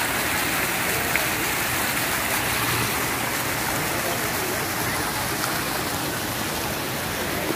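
Fountain water jets splashing into the pool, a steady rush of falling water, with a single small click about a second in.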